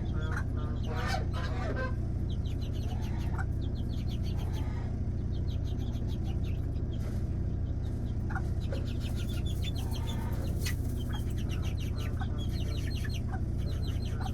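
Chickens clucking, with many short high calls scattered throughout, over a steady low hum.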